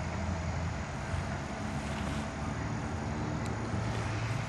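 A steady low engine drone under a faint even background hiss.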